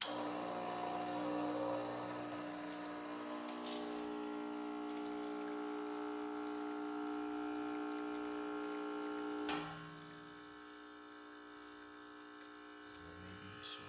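A Rancilio Silvia espresso machine's vibratory pump switches on suddenly and hums steadily as it pulls a freshly serviced test shot. About nine and a half seconds in there is a sharp click and the sound drops to a fainter hum.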